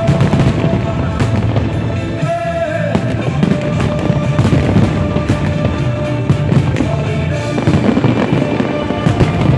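Aerial fireworks shells bursting in a rapid barrage: deep booms and many sharp bangs in quick succession, with music playing along.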